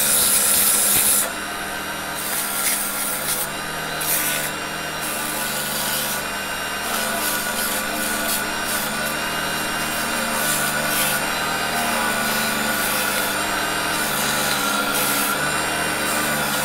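Sandpaper rubbing against a wooden workpiece spinning on a 350 W mini wood lathe: a continuous rasping scrape, loudest in the first second, that varies as the paper is pressed and moved. Underneath it, the lathe's electric motor runs with a steady hum and whine.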